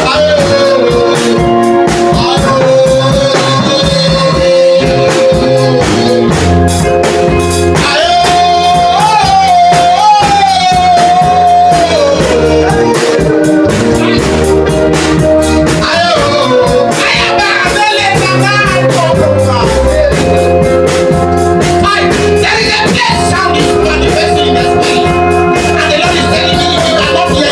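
Music: a song with a voice singing a wavering melody over a band of drums, guitar and bass with a steady beat.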